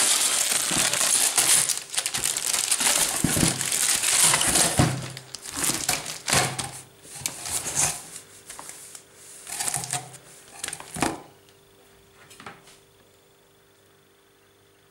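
Cardboard box flaps and plastic wrapping rustling and crinkling as items are handled in a shipping box, continuous at first, then in separate bursts that stop about eleven seconds in, leaving only a faint steady hum.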